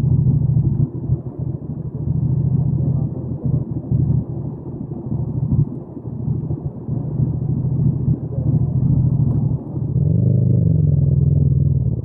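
Yamaha MT-07's 689 cc parallel-twin engine running under way, the throttle opening and closing so the engine note dips several times. About ten seconds in it picks up, louder and rising in pitch.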